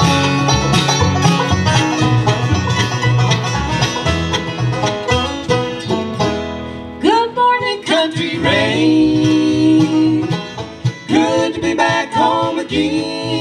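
Acoustic bluegrass band playing, with banjo rolls, guitar, mandolin, fiddle and upright bass in a brisk instrumental opening. About seven seconds in, the texture thins and a sung lead line comes in over the band.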